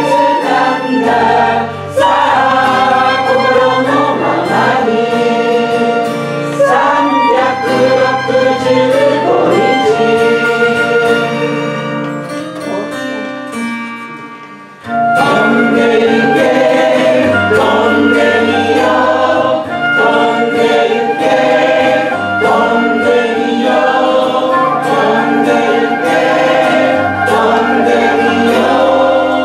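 A group of voices singing a Japanese pop song in unison with acoustic guitar, violin and flute. The music softens to a quiet passage about halfway through, then the full chorus comes back in suddenly.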